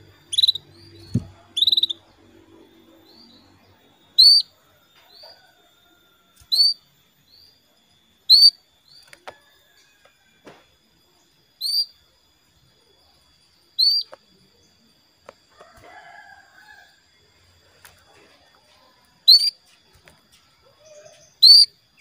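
Female canary calling: a string of short, loud single chirps, about nine in all, spaced roughly two seconds apart with a longer gap in the middle. This is the hen's call that is meant to set male canaries singing.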